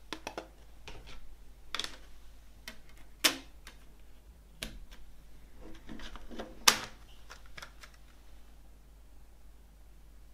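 Plastic CD jewel case handled: a string of light plastic clicks with two sharp snaps about three and a half seconds apart, as the disc is pressed onto the hub and the case is snapped shut.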